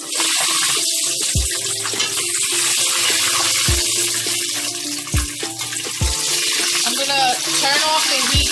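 Plantain pieces deep-frying in hot oil for tostones: a steady, loud sizzle, with a few low thuds.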